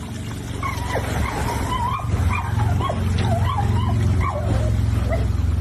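A dog whining and yipping in a rapid string of short, wavering high cries over a steady low hum.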